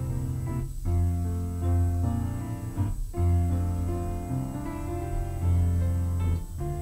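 Slow instrumental piano music: sustained chords held for two or three seconds each, with brief breaks between them.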